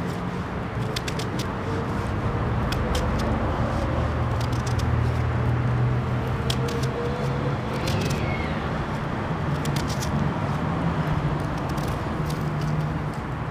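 A small knife peeling a potato, with irregular short clicks as the blade cuts through the skin. Under it runs a steady low rumble.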